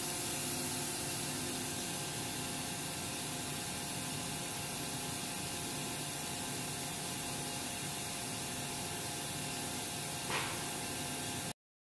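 Steady hiss and hum of a CNC vertical machining center running, with one short tap about ten seconds in.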